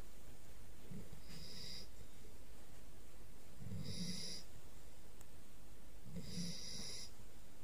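Puppy snoring in its sleep: three snores about two and a half seconds apart, each a low rumble with a high thin whistle on top.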